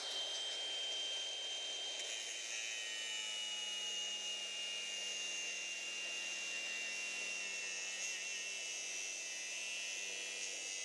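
Milwaukee M18 FUEL cordless angle grinder running steadily while cutting through a stainless steel bolt, its high whine slowly dropping in pitch.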